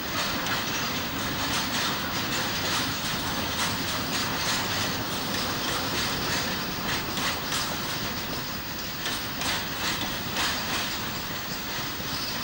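Freight train wagons rolling past: a steady rumble of steel wheels on rail, with irregular clicks as the wheels cross rail joints.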